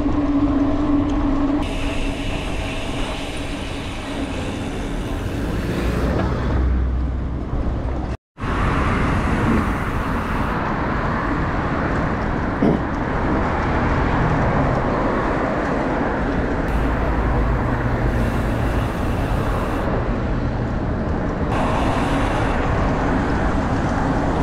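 Road traffic and wind on the microphone heard from a moving bicycle: a steady rush of cars passing on the adjacent road. The sound drops out for a moment about eight seconds in.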